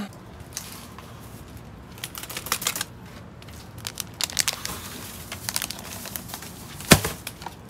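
Plastic wrappers and cardboard snack packaging rustling and crackling in the hands as trash is sorted into bins, in a run of quick irregular clicks, with one sharp knock near the end.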